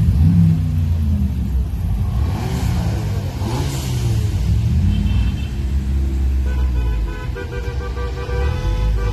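Several decorated cars driving slowly past one after another, engines running, one revving briefly at the start and another passing close by a few seconds in. From about two-thirds of the way through, a run of steady pitched notes sounds from among the passing cars.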